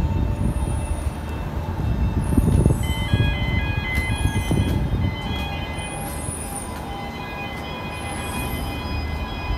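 Heavy diesel trucks and container-terminal machinery running with a loud low rumble, loudest about two to three seconds in. Brief high squeals and steady high whining tones sound above it.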